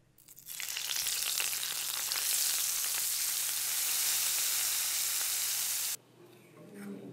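Hot tempering of mustard seeds and curry leaves sizzling as it is poured from a ladle into coconut-based aviyal curry: a loud, dense hiss that builds over the first second, then stops suddenly about six seconds in.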